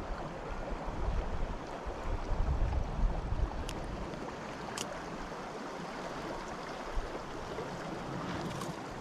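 Small creek running over rocks, an even rush of water, with a low rumble through the first few seconds and two sharp clicks near the middle.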